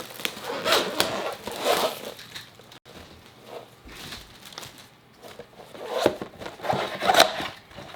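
Trading card box packaging being handled and opened: plastic wrap crinkling and rustling in several short, irregular bursts, loudest about seven seconds in.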